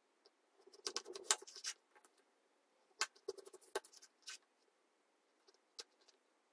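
Knife slicing a peeled zucchini lengthwise into thin strips on a plastic cutting board: faint clicks and short scrapes as the blade cuts through and meets the board, in a cluster about a second in and another around three to four seconds in, then one last click.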